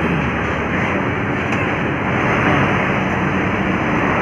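Busy road traffic going by: a steady rush of tyre and engine noise from passing vehicles, with a low engine hum in it. No horn sounds.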